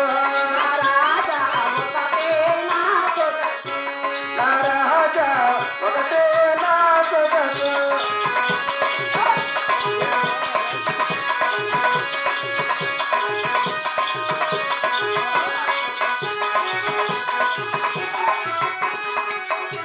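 Live Telugu folk-theatre music: a woman sings for about the first eight seconds over harmonium and hand drums. Then the singing stops, and the harmonium and a fast drum rhythm carry on.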